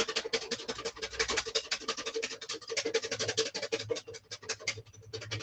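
Hand whisk beaten rapidly around a metal mixing bowl, about ten strokes a second, with the bowl ringing faintly under the strokes. The whisk is beating egg yolks and oil into mayonnaise, done fast so the emulsion doesn't split.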